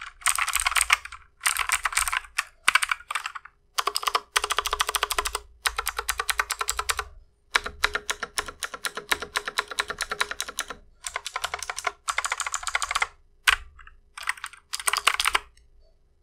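Typing on an Armaggeddon MKA 2C Pro mechanical keyboard with clicky blue switches and modified stabilizers: fast runs of keystrokes in bursts with short pauses. The typing stops near the end.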